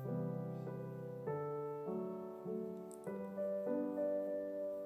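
Soft background music on a keyboard: slow notes changing about every half second over held low notes.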